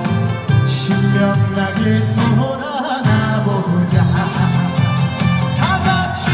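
Trot song performed live over a PA: a male voice singing with wide vibrato over a band backing with a steady bass beat.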